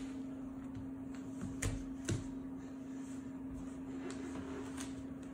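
Faint handling of a gift-wrapped box by a crawling baby on a wood floor, with two soft knocks about a second and a half and two seconds in, over a steady low hum.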